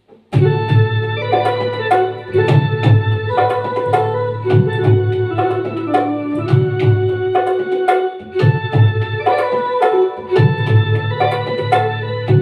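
Instrumental intro on an electronic keyboard playing a melody in held notes, over a steady beat on a dholak.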